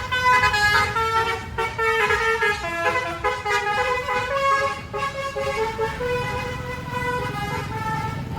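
Bus telolet horn, a set of horns sounded in quick succession, playing a rapid tune of stepped notes over a bus engine running.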